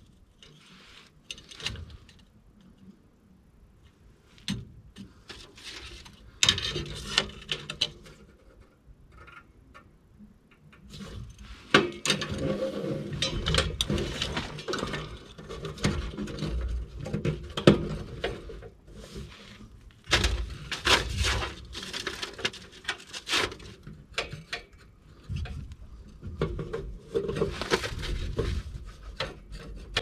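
Hand-work noises as a small component is fitted and screwed into a furnace cabinet: tool and metal parts clicking, knocking and scraping. The noises are scattered at first and become a busier run of scraping and clicks about halfway through.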